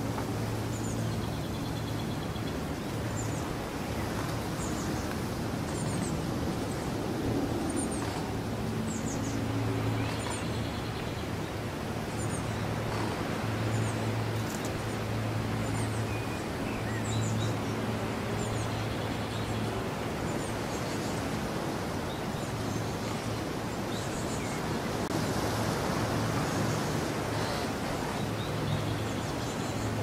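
Countryside ambience: small songbirds give short, high chirps and calls over and over, over a steady hiss and a low engine-like hum that swells and fades every second or two.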